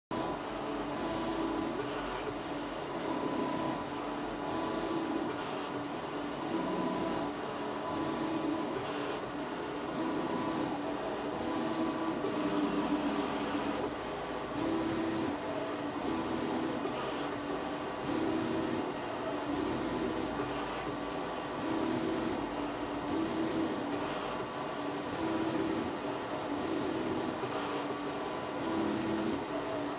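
HP Latex large-format inkjet printer running a print job, its printhead carriage shuttling back and forth across the media in a steady, even rhythm, a pass every second or two.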